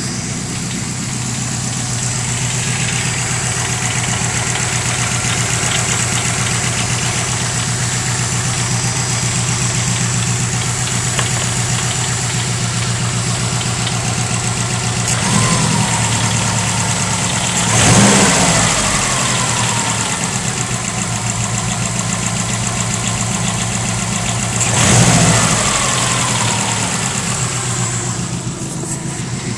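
2005 Subaru WRX's turbocharged flat-four idling warm with a fast metallic rattle, revved briefly three times in the second half. The owner first took the rattle for rod knock, then traced it to the loose catalytic converter inside the turbo up-pipe.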